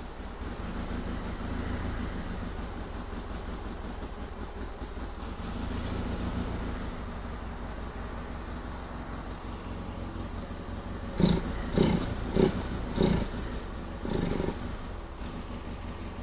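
2002 Polaris Sportsman 700 ATV's twin-cylinder engine running at a low, steady idle that swells a little now and then. From about eleven seconds in it takes a string of short, sharp throttle blips, about two a second. The engine is bogging, which the owner thinks may come from air leaks.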